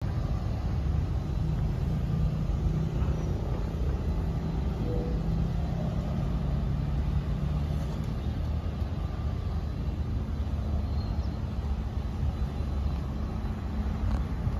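Isuzu wing van truck's diesel engine idling with a steady low rumble.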